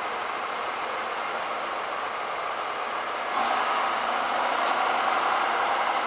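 A pickup truck's engine running as it drives slowly past, getting louder about three seconds in.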